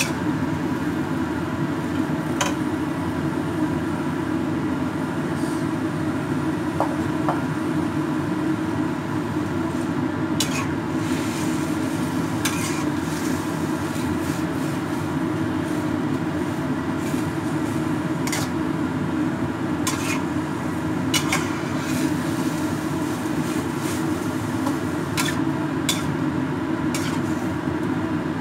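Metal spatula scraping and clinking against a wok while stir-frying rice vermicelli, with a sharp clink every few seconds over a steady low rumble.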